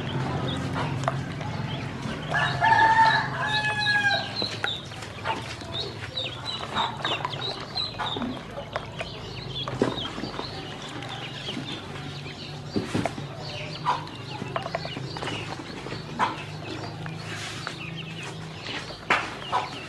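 Yellow ducklings peeping: many short, high calls over light splashing and paddling in a tub of water. About two seconds in comes one louder, longer and lower call, the loudest sound here.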